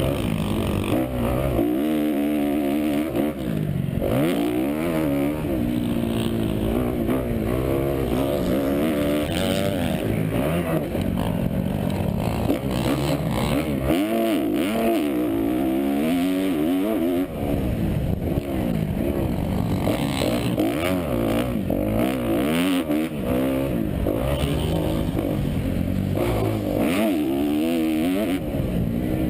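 2012 Kawasaki KX250F's single-cylinder four-stroke engine racing around a motocross track, its pitch climbing and falling over and over as the rider accelerates, shifts and rolls off.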